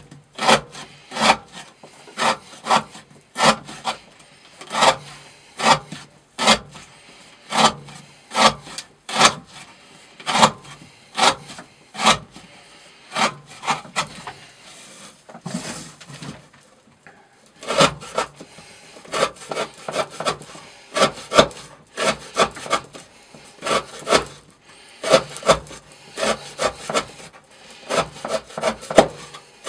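Knife blade slicing through rope again and again in an edge-retention cutting test, one short rasping cut after another, with a brief pause midway and quicker cuts near the end.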